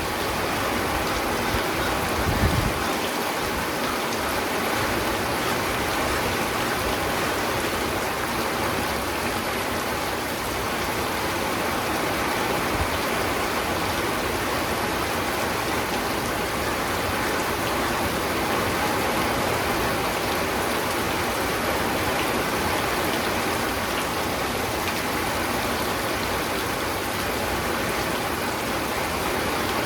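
Steady rainfall, an even hiss of rain with raindrops pattering on surfaces. A brief low thump about two and a half seconds in.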